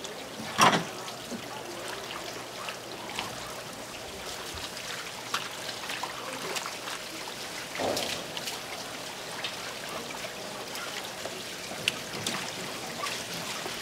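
Running water trickling steadily, with occasional sharp knocks and clatter over it, the loudest about a second in.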